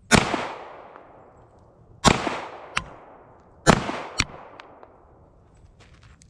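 Three pistol shots from a CZ Shadow 2, a 9 mm handgun, fired slowly, about two seconds and then a second and a half apart. Each shot is followed by a long echoing decay. A lighter sharp crack follows each of the last two shots.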